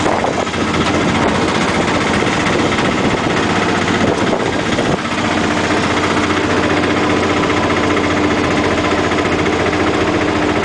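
Tuk-tuk (auto-rickshaw) engine running steadily on the move, heard from inside the open cabin with road and rushing air noise; its engine note grows a little clearer about halfway through.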